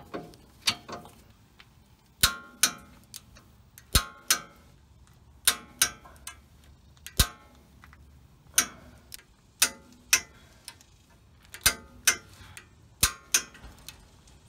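Ratchet and click-type torque wrench clicking in short groups of sharp clicks, a few every second, as the lower ball joint bolts are tightened and torqued to 61 foot-pounds.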